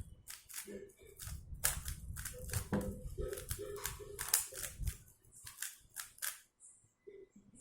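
MoYu RS3M 2020 magnetic 3x3 speedcube being turned quickly as it is scrambled: a rapid, irregular run of plastic clicks and clacks that stops about six seconds in.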